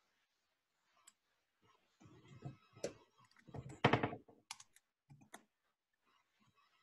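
Computer keyboard typing: scattered key clicks, busiest from about two to five and a half seconds in, heard through a video-call microphone, with one louder muffled bump about four seconds in.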